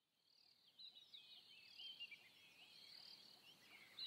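Faint nature ambience fading in about a second in: a steady high insect drone with many quick chirping calls over it.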